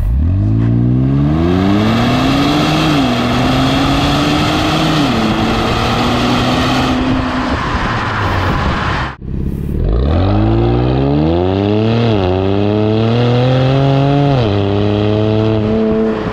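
Infiniti Q60S twin-turbo 3.0-litre V6 through a custom 63 mm valved exhaust in its loud mode, heard at the tailpipe under hard acceleration. The revs climb and drop at two upshifts, then hold steady. After a brief break about nine seconds in, they climb again through two more upshifts.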